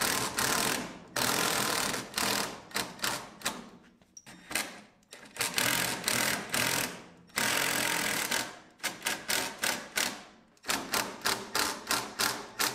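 Cordless drill boring into a concrete block wall in several runs of about a second each, then a string of short trigger bursts over the last few seconds as the mounting screws are driven into the masonry.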